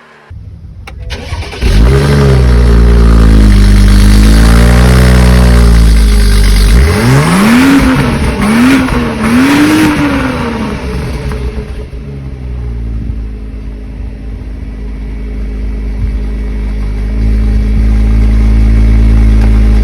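Exhaust of a 2012 BMW 535i's N55 turbocharged inline-six through a freshly fitted catless downpipe, being revved: two slow rises and falls in revs, then three quick blips, then settling to a steady idle.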